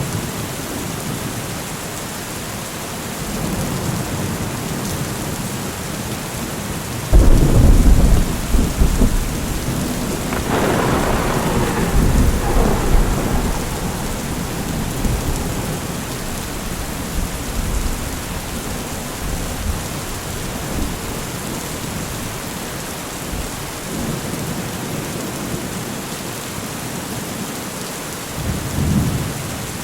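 Steady heavy rain with thunder: a sudden loud thunderclap about seven seconds in rolls on as rumbling for several seconds, and a weaker rumble comes near the end.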